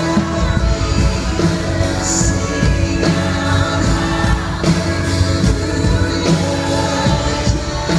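Live band playing a worship song, drums and bass keeping a steady beat under guitars, with voices singing along.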